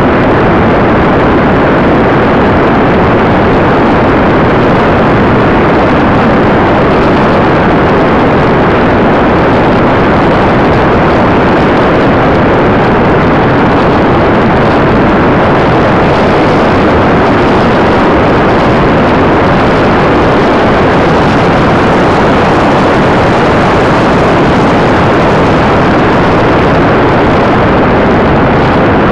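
Steady, loud rushing noise of air streaming over the onboard camera on a gliding RC sailplane in flight, even throughout, with no motor tone heard.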